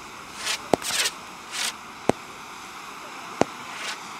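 Fireworks going off in a steady sequence: three sharp bangs about one and a half seconds apart, with short hissing bursts between them, one carrying a faint sliding whistle.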